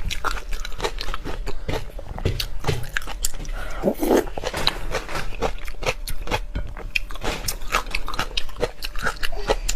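Close-miked chewing and biting of raw shrimp, with many sharp, irregular clicks and crunches.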